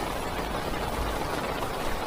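Heavy rain falling on a parked car, heard from inside the car: a steady, even hiss with a low rumble underneath.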